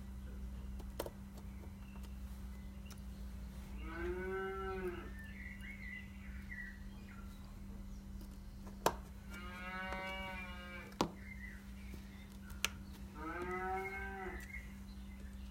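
Cattle mooing three times, each call about a second long and rising then falling in pitch. A few sharp clicks fall between the calls, over a steady low hum.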